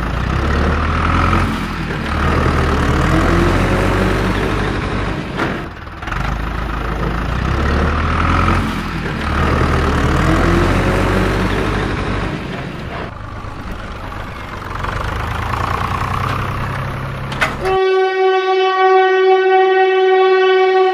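A background soundtrack with a low, looping pattern that steps in pitch about once a second, then a long horn-like toot with several overtones for the last three seconds.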